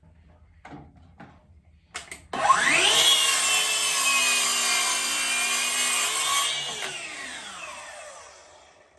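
Circular saw cutting wood: a few clicks, then about two and a half seconds in the motor spins up with a rising whine and runs through the cut. It is released about six and a half seconds in, and the blade winds down with a falling whine until it stops.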